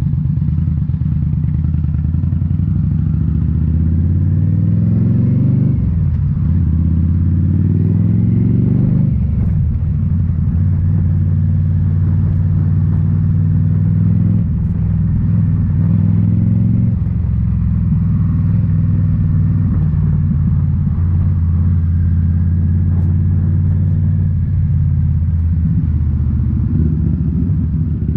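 2018 Indian Scout Bobber's V-twin through Rinehart slip-on mufflers, pulling hard with rising pitch and shifting up twice in the first nine seconds. It then holds a steady cruise and begins to pull up again near the end.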